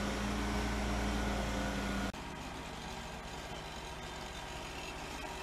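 Boom truck's engine running steadily, a low hum with a faint tone over it. About two seconds in the sound cuts suddenly to a quieter, lower steady engine drone.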